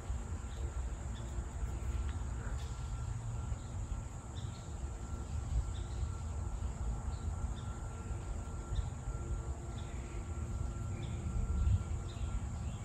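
Forest background noise: a distant engine drone, sounding like a leaf blower about half a mile off, under a low rumble and a steady high insect hum.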